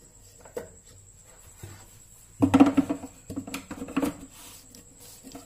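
Steel kitchen vessels clattering as the chopped masala ingredients are tipped into a mixer-grinder jar: a quick run of knocks and ringing clinks about two and a half to four seconds in, with a small click before it.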